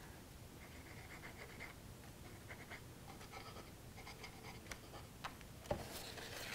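Faint rustling and scraping of a cardstock heart box being handled as its paper tabs are flipped up and glue is dabbed on from a squeeze bottle, with a soft knock near the end.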